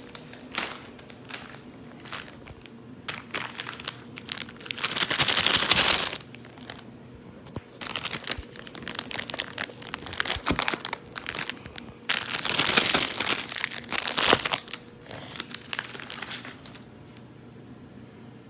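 Irregular bursts of crinkling and rustling from close handling. The loudest stretches come about five seconds in and again around twelve to fourteen seconds in, and it dies down near the end.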